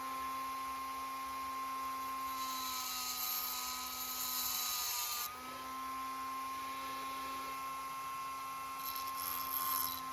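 A small high-speed drill or rotary tool running steadily. From about two seconds in, for roughly three seconds, it grinds with a high hiss and its pitch dips slightly under load, then it runs free again.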